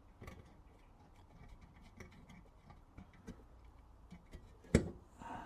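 Faint, irregular small metal clicks and ticks from handling a Mamod TE1A toy steam traction engine while its little roof-retaining screw is worked in, with one louder knock near the end.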